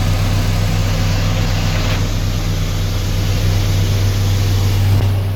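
Tractor engine running steadily with an even, low drone.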